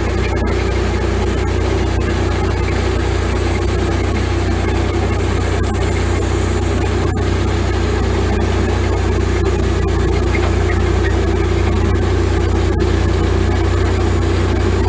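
Wood-Mizer LX150 bandsaw sawmill running steadily as its blade cuts a thick slab off a sweetgum log, a constant engine drone with a few faint ticks.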